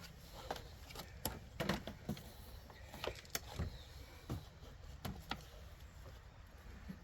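Irregular clinks and knocks of hand tools and metal parts being handled while working at the top of a front strut, about a dozen sharp strikes at uneven intervals.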